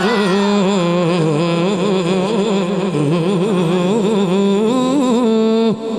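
A man singing a Punjabi devotional kalam into a microphone: one long melodic line with held, wavering notes and slow ornamental turns, dipping briefly near the end.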